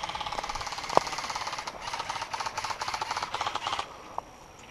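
Airsoft gun firing a long full-auto burst, a fast even rattle of about a dozen shots a second that stops abruptly near the end, with one sharper crack about a second in.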